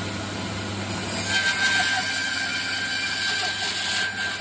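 Bandsaw motor running with a steady hum; about a second in the blade starts cutting through a piece of timber, adding a louder cutting noise and a thin high whine that stops near the end as the cut for an off-lap joint finishes.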